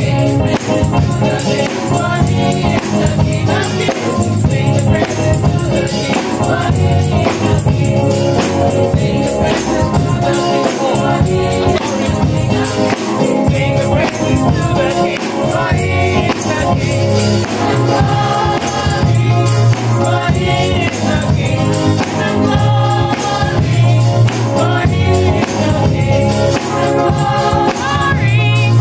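Live gospel praise band playing: a drum kit with cymbals and a keyboard under group singing.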